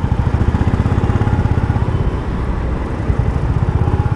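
Honda motorcycle engine running at low speed, a steady rapid low thumping from the exhaust, heard close up from the rider's seat.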